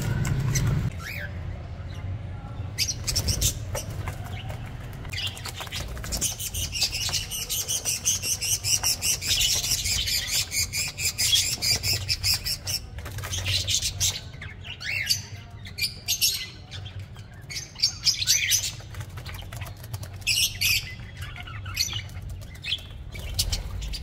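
Budgerigars chirping and chattering, with a dense run of fast high chirps in the middle and scattered calls on either side, over a low steady rumble.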